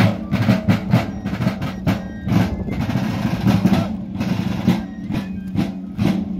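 Several military field drums (snare drums) played together by marching drummers: rapid, dense beating with drum rolls.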